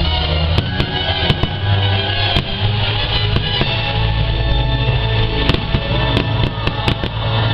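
Fireworks show music playing over loudspeakers, with fireworks going off over it in sharp bangs and crackles that come thicker in the second half.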